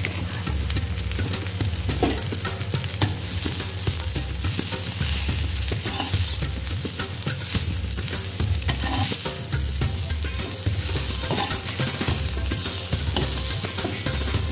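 Bitter gourd, potato and onion stir-frying in a metal pan: a steady sizzle with a metal spatula scraping and clicking against the pan as the vegetables are stirred.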